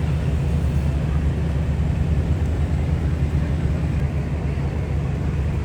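Steady low engine drone of a river passenger boat under way.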